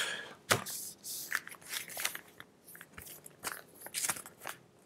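Intermittent crinkling and light clicks from small plastic-wrapped items and paper being handled on a tabletop, with a few sharper taps among them.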